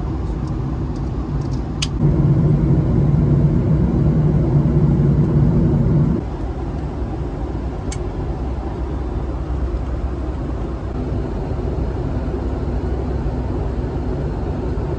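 Steady cabin noise of a Boeing 757-200 in flight: a low roar of engines and airflow. It grows louder for about four seconds, starting about two seconds in, then drops back suddenly. There are a couple of faint clicks.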